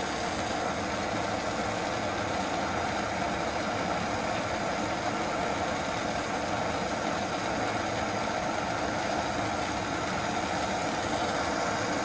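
Steady, unbroken hiss and hum of a lit glassblowing bench torch and the running shop equipment around it, with no strikes or changes.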